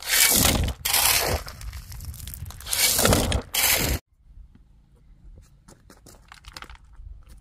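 Shovelfuls of crushed stone poured into a wheelbarrow: about four loud, rattling crunches of gravel. They stop suddenly about four seconds in, leaving faint scattered crunching footsteps on gravel as the loaded barrow is pushed.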